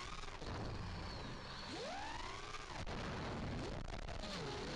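FPV quadcopter's electric motors and folding props whining, the pitch swooping up and back down about two seconds in and dipping again near the end as the throttle changes, over a steady rush of air on the onboard microphone.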